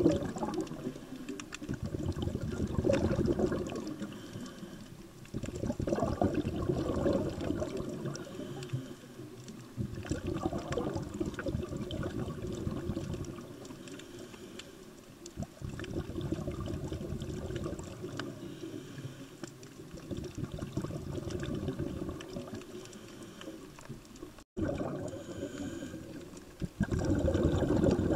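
Scuba diver breathing through a regulator, heard underwater. Every few seconds comes a swell of rumbling, crackling exhaled bubbles, with quieter spells between.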